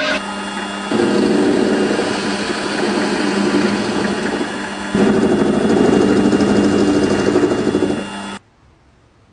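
A small motor running steadily, getting louder twice as its load changes, then stopping abruptly near the end.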